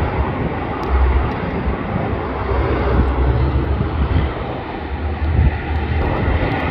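Twin-engine turboprop airliner running on the runway, a steady rushing drone over an uneven low rumble.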